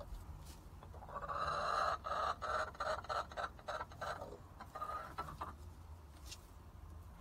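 Backyard hen calling: a loud drawn-out squawk about a second in that breaks into rapid choppy clucks, then a shorter call about five seconds in.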